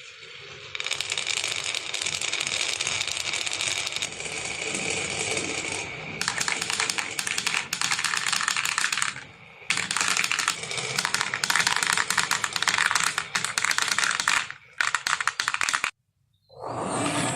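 Many marbles rolling and clattering down a marble run: a dense, fast rattle of clicks that breaks off briefly a few times. A different sound starts just before the end.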